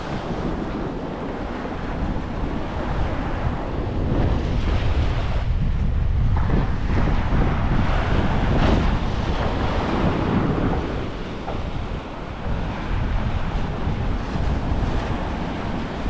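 Surf breaking and washing on a beach, with wind buffeting the microphone as a low rumble. The surf swells louder for several seconds in the middle.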